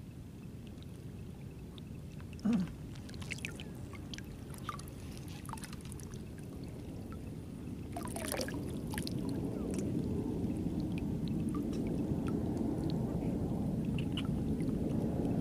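Water lapping and sloshing, with scattered small clicks and a short sharp sound about two and a half seconds in. The sloshing grows louder from about eight seconds on.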